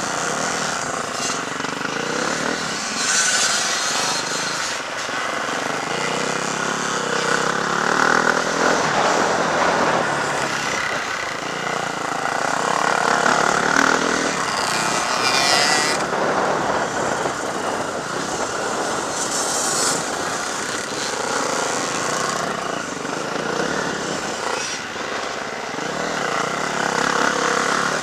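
Several off-road motocross motorcycles racing, their engines revving up and easing off, the sound swelling and fading as they pass.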